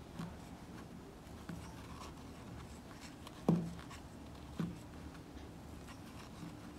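Faint scratching and rubbing of cotton crochet thread as a steel crochet hook pulls it through stitches. There is a short soft sound about three and a half seconds in and a smaller one about a second later.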